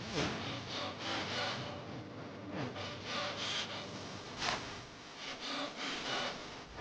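Irregular scraping and rubbing noises, a string of short rough strokes of things being moved and handled.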